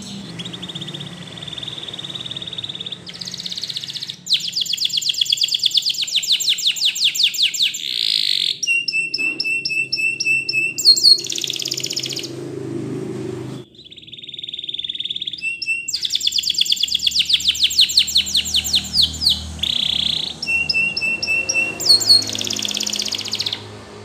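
Canary singing two long song phrases, split by a brief pause about halfway through. Each phrase opens with a soft held note, runs into fast rattling trills, and ends in a string of short, clear whistled notes.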